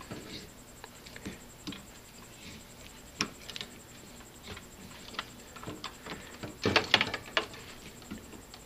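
Irregular small metallic clicks and knocks from a hand tap and T-handle tap wrench cutting threads into an aluminium hose adapter held in a vise. The wrench is turned a little forward, then backed off to break off the chips. A quick run of louder clicks comes about seven seconds in.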